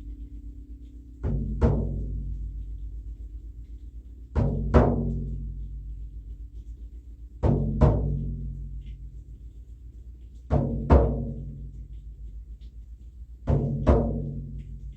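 Deep drum struck in a slow heartbeat pattern: five double beats, about three seconds apart, each pair ringing out low before the next.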